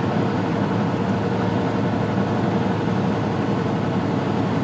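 Steady drone of a semi-truck cruising down a highway, heard from inside the cab: diesel engine and road noise, even and unchanging.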